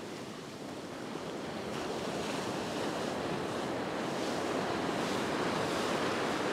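Ocean surf breaking and washing up the sand around the feet, a steady rushing that swells a little toward the end.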